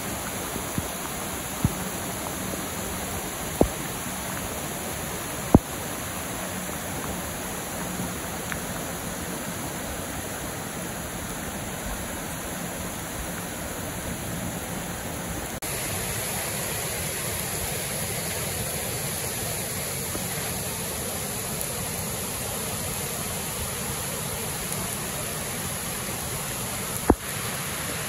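Steady rushing of a creek in flood, muddy water pouring over rocks and rapids. A few sharp knocks stand out, and the rush turns brighter about halfway through.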